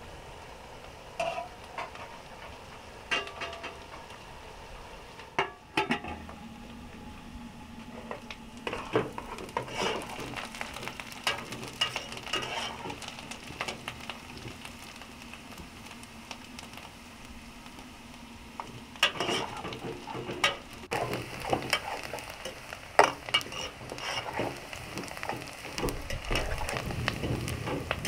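Food sizzling as it fries in a cooking pot while a metal spoon stirs it, with repeated knocks and scrapes of the spoon against the pot, thickest about a third of the way in and again after about two-thirds.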